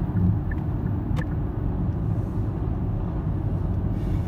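Steady low rumble of a car's engine and tyres heard inside the cabin while driving, with one short click about a second in.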